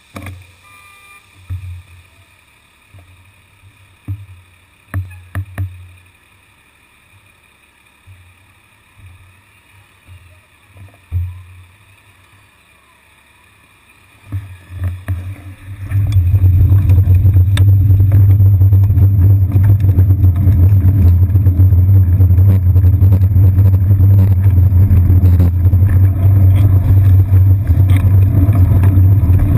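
Muffled sound through a seat-post-mounted GoPro Hero 2 on a bicycle: at first mostly quiet with a few dull low thumps while the bike stands still. About halfway through it jumps to a loud, steady low rumble of wind and road vibration as the bike rides off.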